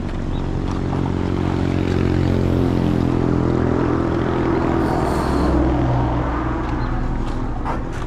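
A motor vehicle's engine running close by, its pitch rising in the middle and then settling, with a brief hiss about five seconds in.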